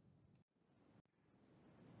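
Near silence: faint room tone, dropping to dead silence twice for a moment.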